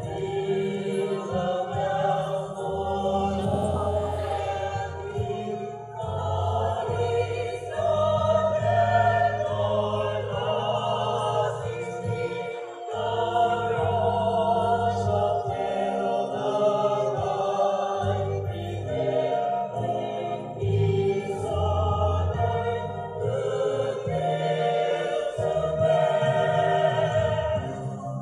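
Mixed choir of women's and men's voices singing in harmony, amplified through a stage sound system.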